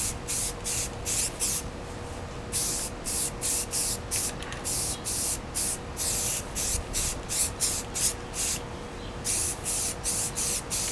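Rust-Oleum aerosol primer can spraying in short, quick hissing bursts, about three a second, with two brief pauses, laying light coats of primer.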